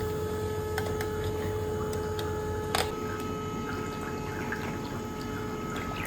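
Water running or trickling under a steady machine hum made of several even tones, with small scattered clicks and one sharper click about three seconds in.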